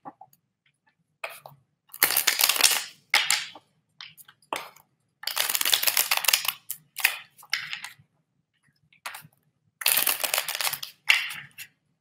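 A deck of tarot cards being shuffled by hand: dry papery rustling and riffling in several bursts of about a second each, with short pauses between.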